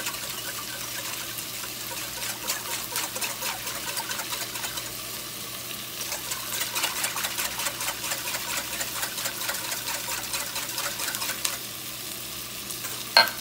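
Whisk beating liquid stock in a glass bowl: fast, close-set ticks of the whisk against the glass with light sloshing, easing off about two seconds before the end. Then one sharp ringing clink, the loudest sound.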